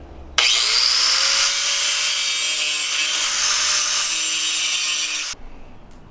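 Angle grinder spinning up and grinding through cotter pins: the motor's pitch rises as it starts, then a loud, steady hiss of metal grinding for about five seconds before it stops suddenly.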